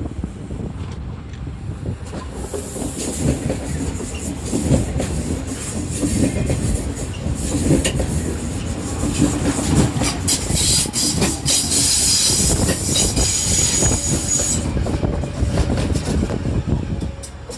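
A DB Class 425 electric S-Bahn train passing close by, its wheels clattering over rail joints with a loud hissing rush. The passage builds after a couple of seconds, carries a high steady tone for a few seconds past the middle, and falls away near the end.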